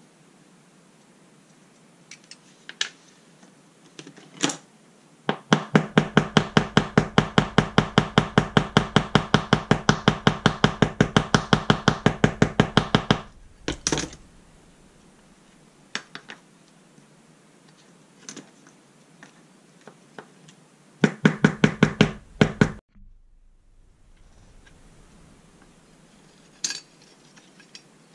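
Small hammer tapping rapidly and evenly on a small steel part, about seven light blows a second for some seven seconds, then a second run of about two seconds near the end. Scattered single clicks of small metal parts being handled come between the runs.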